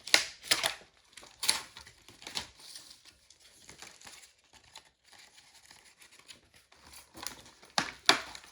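Packaging of a smoke alarm being handled and pulled apart: short crinkling and tearing noises, several in the first couple of seconds and a few more near the end, with a quieter stretch between.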